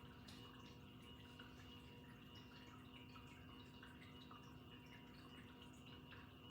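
Near silence: the faint steady hum of a 1998 Hunter Art Nouveau Medalist ceiling fan's motor running, with faint scattered small ticks, several a second.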